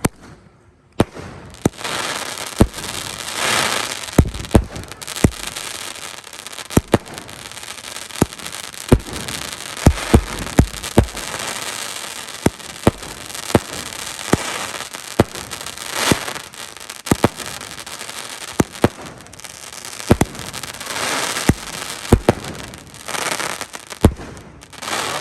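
Dragon Fireworks 'Eye of Osiris' 16-shot fireworks cake firing: a long run of sharp bangs as shells launch and burst at irregular intervals, over a steady crackling hiss that swells and fades several times.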